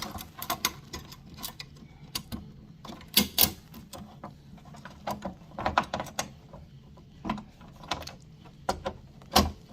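Ratchet socket wrench clicking in short runs as a TV-mount bracket screw is tightened, with a few knocks of metal parts being handled.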